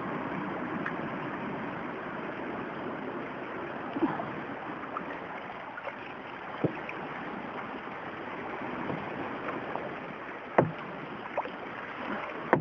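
Kayak gliding on the sea: a steady wash of water sloshing around the hull, broken by a few sharp knocks and splashes, the loudest about two-thirds of the way through.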